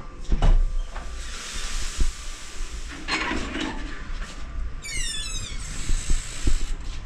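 A door being opened: dull thumps and a rushing hiss. About five seconds in there is a quick run of high, falling chirps.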